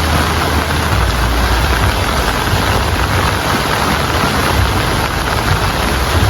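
Heavy rain falling steadily, a dense even hiss of drops, with a low rumble underneath.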